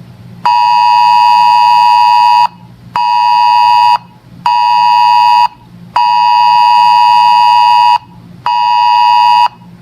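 A weather alert radio sounds its alarm for an incoming warning: a loud buzzing tone of about 1 kHz beeps in a repeating pattern of one two-second beep followed by two one-second beeps.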